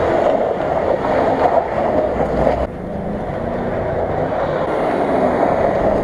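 Land Rover Discovery II engine revving hard as its spinning tyres throw mud, with a steady rushing of wind and tyre noise over it. The sound changes abruptly a little under halfway through, where the footage cuts.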